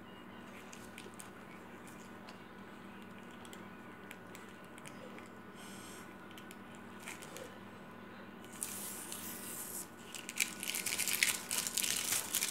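Tape being peeled off a fabric pillowcase: faint picking and rustling at first, then louder ripping as strips pull away from the cloth over the last few seconds.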